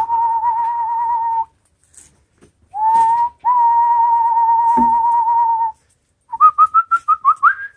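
A person whistling: two long, steady notes with a slight waver, then a quick run of about eight short notes climbing in pitch near the end.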